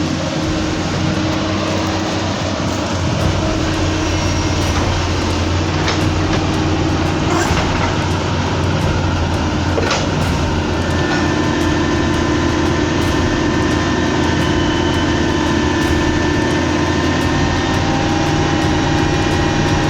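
Large tracked excavator's diesel engine running steadily at working revs, with a constant low drone and a few faint knocks near the middle.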